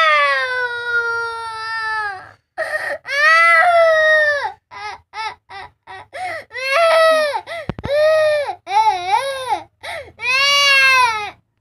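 A toddler crying: long high-pitched wails, the first sliding down in pitch, broken by quick short sobs around the middle, then wavering cries and one more long wail near the end.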